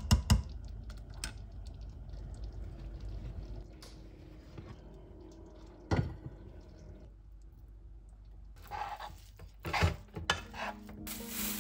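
Kitchen sounds: wooden chopsticks clicking against a steel pot of tomato sauce, then a single clank about six seconds in as the pot is set down on a metal trivet. Near the end, a spoon scrapes and scoops through cooked rice in a pot, and soft piano music begins.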